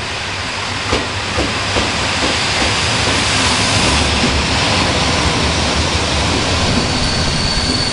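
Historic train hauled by an FS E.646 electric locomotive running in along the platform: a steady rush of wheels and carriages that grows louder, with a few clacks of wheels over rail joints about a second in. A high steady squeal comes in near the end.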